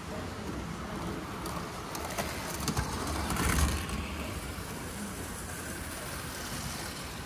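Model train running on layout track, a steady low rumble with room noise, with a few brief knocks and a louder swell about three seconds in.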